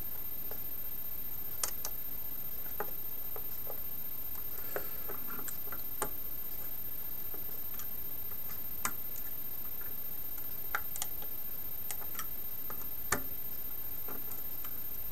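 Scattered, irregular light clicks and taps of a jeweler's screwdriver and fingertips working the screw terminals of a RAMPS 1.4 3D-printer control board, over a steady hiss.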